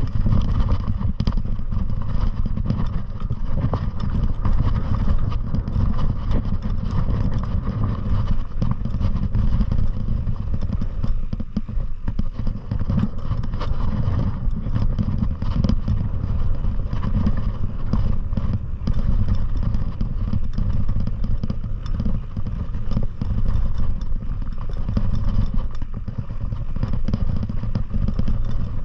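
Continuous low rumble of riding downhill over rough ground: wind buffeting the microphone, with a steady clatter of small knocks and rattles.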